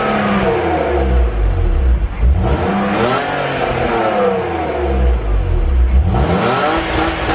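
BMW E46 323Ci's 2.5-litre straight-six through its stock exhaust with the rear muffler still fitted, revved up and down several times, the pitch falling and rising again with each rev.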